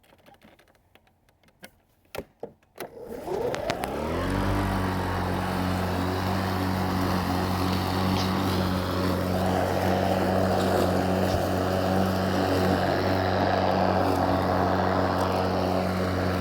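Greenworks 40-volt brushless electric lawn mower: a few clicks, then about three seconds in the motor and blade spin up with a rising whine. It settles into a steady hum, and a rushing noise grows louder from about nine seconds in.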